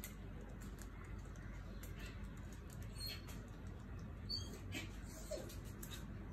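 A couple of short, high animal chirps about three and four seconds in, over scattered light clicks and a steady low background noise.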